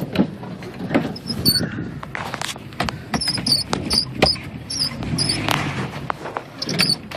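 Inside the cab of a 1987 Toyota 4Runner crawling a rough trail: knocks and rattles, with short high squeaks about three a second near the middle, over a low rumble.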